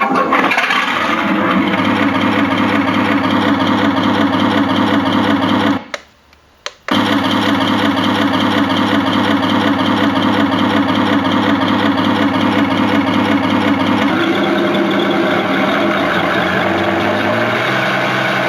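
Simulated German Tiger tank engine from a Heng Long TK 6.1 RC tank sound board, played through a home cinema speaker: a steady, rhythmic engine run that cuts out for about a second around six seconds in, resumes, and changes note about fourteen seconds in.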